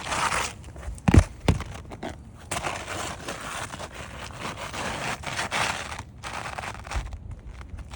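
Gritty scraping and crunching of asphalt shingles being handled and slid against the granular roof surface, with two sharp knocks a little over a second in.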